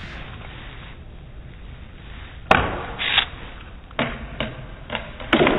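Plastic cards flicked out of a hand and sent flying, making a series of about six short, sharp swishes; the first and loudest comes about two and a half seconds in, the rest follow at shorter gaps.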